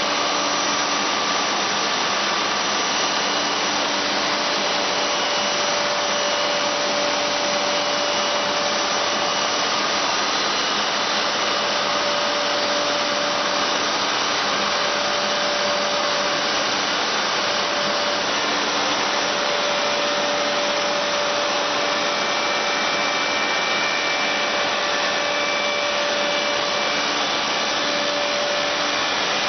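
Automated woodworking machine running steadily: an even whir of motors and spinning cutter heads with a few faint steady hum tones, at a constant level.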